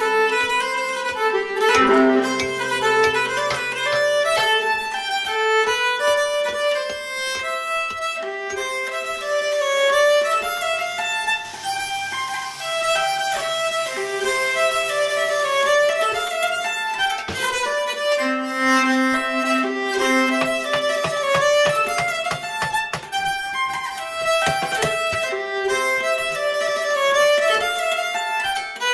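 Solo fiddle playing a Swedish folk tune: a quick melody of short bowed notes, played without a break.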